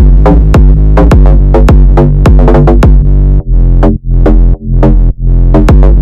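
Electronic background music with a heavy bass and a drum-machine beat, about three hits a second, with a few brief gaps in the bass in the second half.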